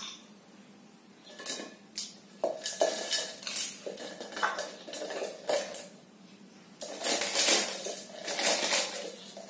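Dry instant noodles being crumbled by hand: irregular crackling and rattling as the brittle pieces break and drop into a blender jar, busier near the end.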